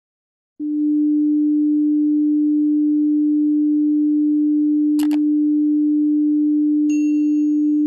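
A steady, low-pitched electronic sine tone, like a test-pattern tone, starts about half a second in and holds at one pitch. About five seconds in there is a short click, and near seven seconds a brief high ding sounds over it.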